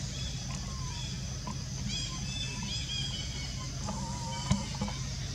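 Outdoor ambience: a steady low hum under a continuous high drone, with a few short chirping calls about two seconds in and a wavering call near four seconds. A single sharp click comes about four and a half seconds in.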